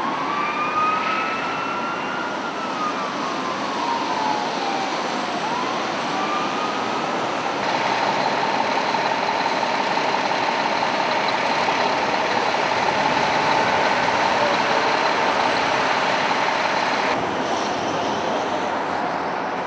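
Emergency vehicle siren in a slow wail, rising, falling and starting to rise again over the first several seconds, over steady highway traffic noise. From about eight seconds in the siren is gone and steady traffic noise remains, with a faint steady whine.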